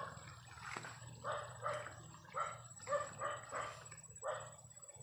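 A dog barking in a run of about eight short, high-pitched barks, starting about a second in; the kind of barking the speaker reads as a dog that has spotted an animal.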